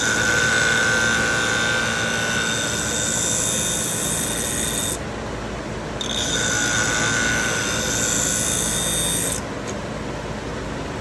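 Scissor blade ground on the motor-driven wheel of a Twice As Sharp sharpener in two passes, the first about five seconds and the second about three and a half, each a rasping hiss with a steady whine. Between and after the passes the sharpener's motor runs on with a steady hum.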